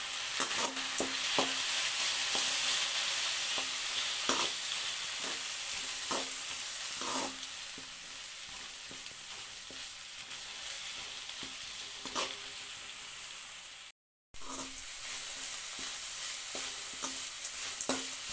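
Chopped tomato, onion and green chillies sizzling in hot oil in a pan while a spatula stirs, knocking and scraping against the pan every second or so. The sizzle is louder in the first half, and the sound cuts out completely for a moment about three-quarters of the way through.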